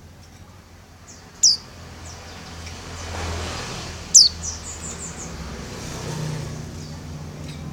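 A female white-eye (pleci) calling with two loud, sharp downward-sweeping chirps, about a second and a half in and again about four seconds in, with fainter chirps between. Road traffic rumbles low underneath, swelling twice.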